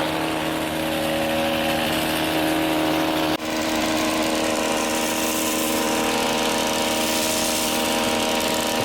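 An engine running steadily at a constant pitch. The sound cuts briefly about three and a half seconds in and resumes at a slightly different pitch.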